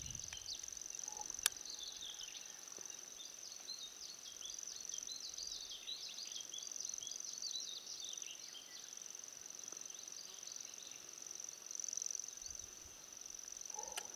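Outdoor summer ambience: insects trilling in a steady high-pitched drone, with a flurry of short high chirps over the first half. A single sharp click sounds about a second and a half in.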